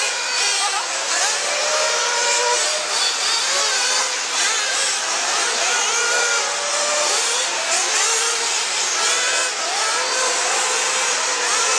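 Several radio-controlled off-road race cars running laps, their small high-revving engines whining up and down in overlapping pitches as they accelerate and brake around the track.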